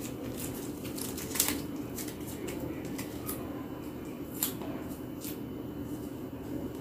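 Light clicks and rustles of photocards and plastic wrapping being handled, a few sharper ticks among them, over a steady low room hum.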